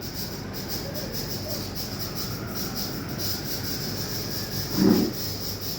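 Steady background noise: a low rumble and hiss with a faint hum, and one short louder sound near the end.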